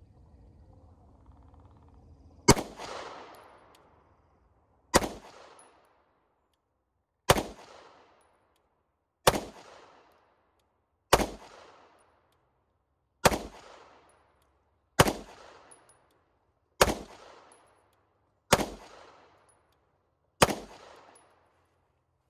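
Ten single pistol shots from a Walther PDP F-Series 9mm, fired slowly at an even pace about two seconds apart, the first about two and a half seconds in. Each is a sharp crack with a short fading tail.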